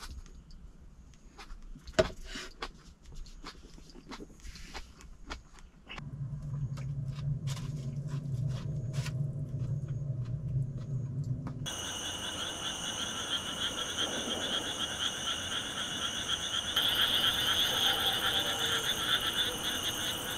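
Chopsticks clicking and chewing, then a low steady hum for about six seconds. It cuts to a dense night chorus of calling animals: several steady, pulsing trills at different pitches that get louder near the end.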